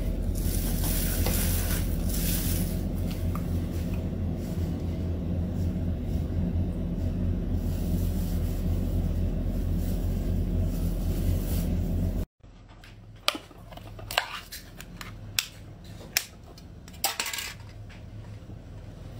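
A steady low hum with hiss for about twelve seconds, which cuts off abruptly. Then chopsticks stir in a jar of spicy food, clinking sharply against the container about five times, with scraping between the clinks.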